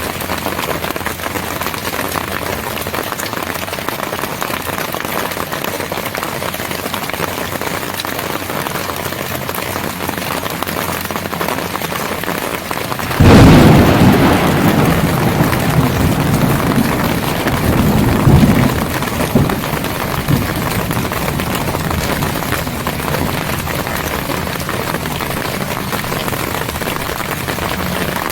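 Steady heavy rain falling, with a sudden sharp thunderclap about halfway through that rolls on as rumbling, swelling again a few seconds later before fading back under the rain.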